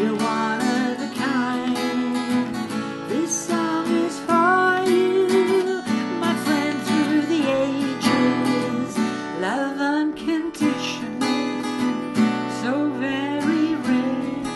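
Song with strummed acoustic guitar and a melody line whose notes bend in pitch.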